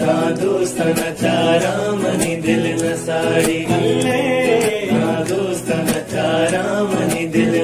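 Music: a Balochi song, a voice singing a melody over instrumental backing.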